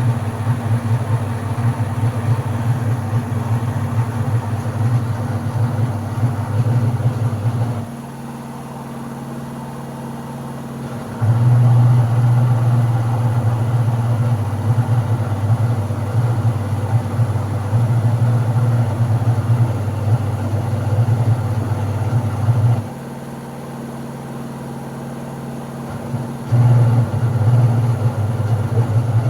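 LG washing machine's motor running with a loud, low, engine-like drone that sounds like a racing car. It stops twice for about three seconds, about eight seconds in and again past twenty seconds, then starts up again.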